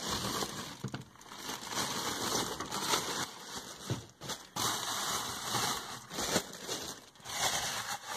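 Plastic bags crinkling and rustling as things are pushed around and rummaged through by hand.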